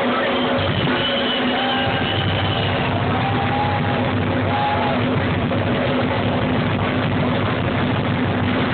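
Live rock band playing loud and dense, with drums and sustained amplified instruments.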